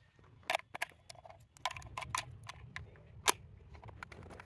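Hard plastic clicks and taps from handling a pistol-grip RC car transmitter while its AA batteries are fitted, with the sharpest click about three seconds in.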